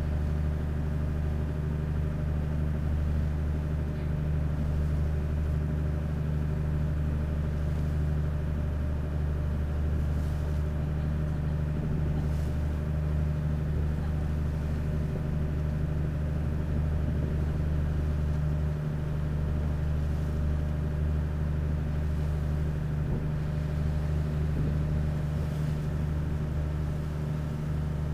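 Sightseeing boat's engine running steadily at cruising speed, a constant low drone heard from inside the cabin.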